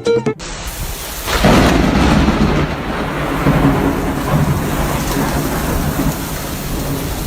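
Heavy rain falling steadily, with a loud rumble of thunder that swells about a second and a half in.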